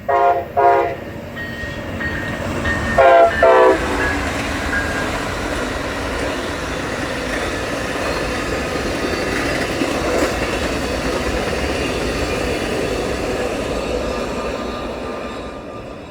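Amtrak passenger locomotive horn sounding two short blasts at the start and two more about three seconds in. Then comes the steady noise of the train passing at speed, fading away near the end.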